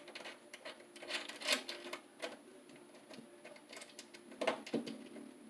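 Irregular light metallic clicks and taps from a Romex cable connector being fitted into a knockout in the bottom of a steel breaker panel, with a couple of sharper clicks about a second and a half in and near the end.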